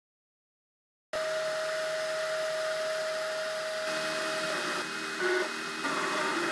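Cubify Cube 3D printer running as it prints, starting about a second in: a steady fan-like hiss with a steady tone. Later the tone gives way to motor whines that change pitch as the print head moves.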